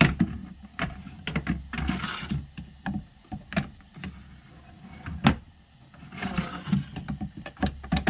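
A drawer being pushed by hand onto its metal drawer slides: a series of knocks and clicks with short sliding scrapes, as it does not yet go in easily.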